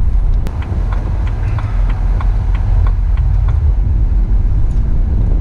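Steady low road and engine rumble inside a BMW X1's cabin while it is being driven, with a run of light, irregular clicks over the first three and a half seconds.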